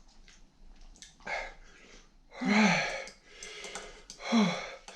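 A man's heavy, breathy exhales, three in all, the louder two about halfway and near the end each starting with a short falling groan: pained panting from the burn of extremely spicy Carolina Reaper ramen.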